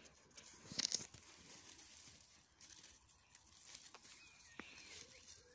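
Faint rustling of raspberry canes and leaves being pushed aside by hand, with a brief, crisper rustle about a second in.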